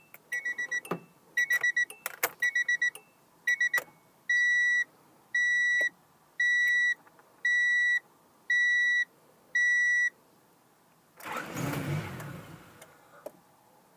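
High electronic beeps, first in quick clusters with clicks, then six longer beeps about one a second. About eleven seconds in, a short rough burst of about a second and a half: the Honda Prelude's H23 engine being cranked without catching, a no-start that the owner puts down to a lack of spark and suspects the ignition coil.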